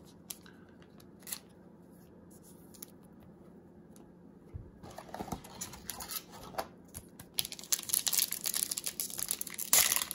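Foil wrapper of a 2017 Topps Stadium Club card pack crinkling and tearing as it is ripped open by hand. It starts about halfway through after a few faint taps and is loudest near the end.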